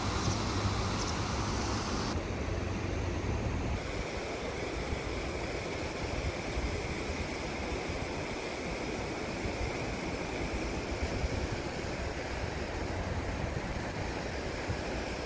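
Rushing water of a fast mountain river pouring over a low weir and running along a walled concrete channel, a steady rush. The sound shifts abruptly about two seconds in and again near four seconds, then stays steady.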